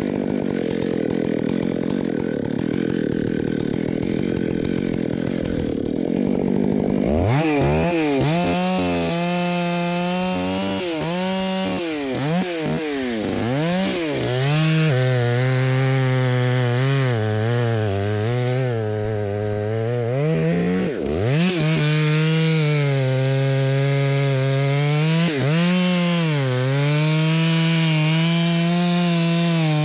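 Stihl MS661 two-stroke chainsaw cutting into a white fir trunk at full throttle. After the first several seconds its pitch dips and recovers again and again as the chain loads up in the wood, with one brief sharp drop about two-thirds of the way through.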